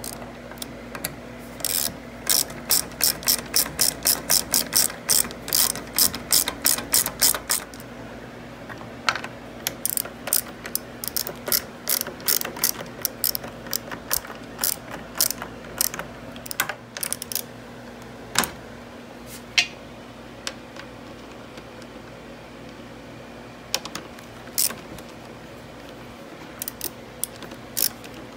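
Hand socket ratchet on an extension clicking as the headlight mounting bolts are run in: a fast run of clicks for several seconds, then slower, scattered strokes.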